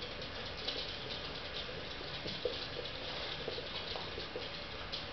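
Puppies' claws clicking and pattering on a hard wooden floor as they scuffle and run about, a quick, uneven run of small ticks.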